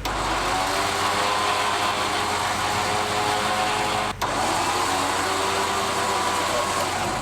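Warn Zeon 12-S electric winch motor running steadily under load with a slowly wavering whine, spooling in its synthetic rope. It cuts out briefly about four seconds in, then runs on.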